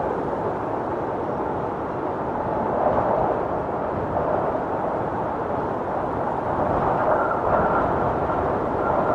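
Storm wind blowing hard and steadily, a dense rushing noise that swells and eases slightly in gusts.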